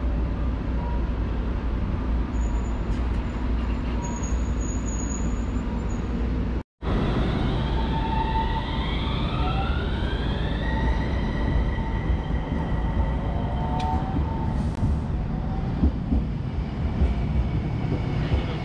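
Electric streetcar of the Kumamoto City Tram running along the rails with a steady rumble. After a brief dropout a third of the way in, a tram pulls away: its motor whine rises in pitch and then holds steady.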